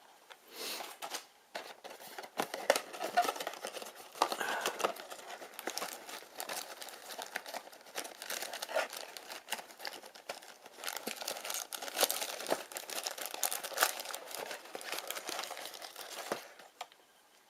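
Crinkly packaging being handled, crumpled and torn open by hand: irregular crackling and rustling as a blind-box mystery mini vinyl figure is unwrapped.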